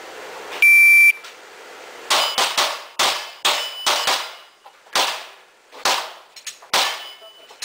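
An IPSC shot timer's start beep, a steady high tone about half a second long, then a competitor's string of about a dozen gunshots fired through the stage, irregularly spaced with some quick pairs.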